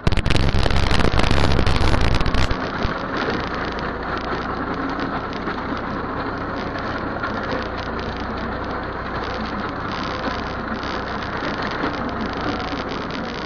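Massey Ferguson tractor's diesel engine running steadily under load while it works the soil, heard as a low hum under a rushing noise. The first two and a half seconds are louder and harsher.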